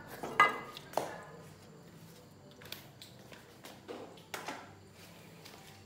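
Frying pans and chopsticks clattering on a gas stove: two sharp clanks in the first second, the first with a brief metallic ring, then a few lighter clicks and taps.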